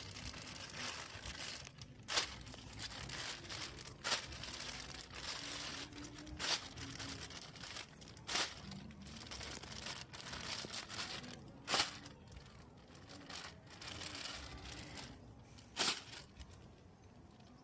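Thin plastic bag crinkling and crackling as it is handled and emptied of water, with sharp crackles every couple of seconds.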